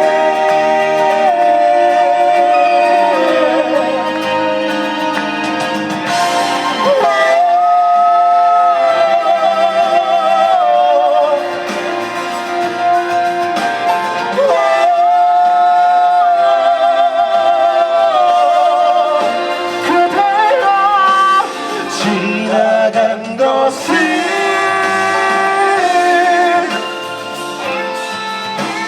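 Live band music: a singer holding long notes with a wavering vibrato over guitar accompaniment, with a few short breaks between phrases.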